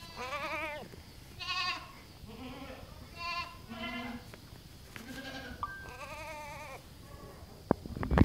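Baby goats bleating, about six or seven separate quavering calls, some higher and some lower in pitch. Near the end come two sharp knocks, the loudest sounds, as a kid jumps up against the man.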